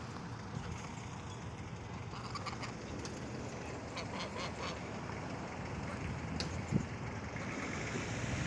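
Domestic geese giving short, scattered calls in brief clusters about two and four seconds in, over a steady background hiss. A single thump about seven seconds in.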